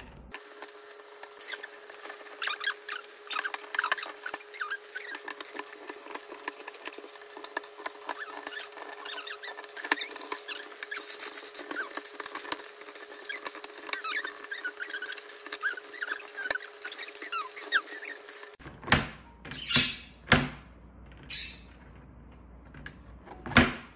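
African grey parrot prying keycaps off a computer keyboard with its beak: a busy run of small plastic clicks and rattles, with squeaks. About three-quarters of the way in the clicking stops and a few short, loud calls follow as the parrot fusses.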